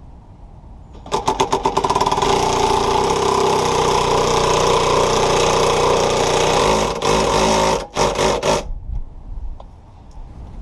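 Cordless impact driver with a 3/4-inch socket spinning a scissor jack's screw to lift a Chevrolet HHR. It starts about a second in with a rapid stutter, runs steadily for about six seconds, then gives a few short bursts near eight seconds before stopping.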